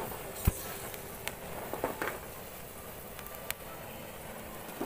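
Raw cashew nuts burning in their shells in an open fire on a corrugated metal sheet: a steady low noise of flames with a few sharp cracks and pops, the loudest about half a second in. The oily sap of the shells is catching fire.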